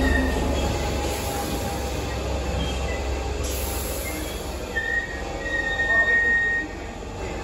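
Southern Class 313 electric multiple unit running slowly alongside the platform, a steady low rumble from the passing coaches. A high-pitched squeal builds as it slows, loudest about six seconds in, then the noise drops away.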